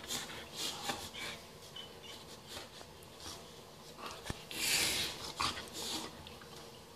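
A Great Dane and a Boxer play-fighting while lying down, mouthing each other, with short breathy huffs. A longer breathy burst comes about two-thirds of the way through.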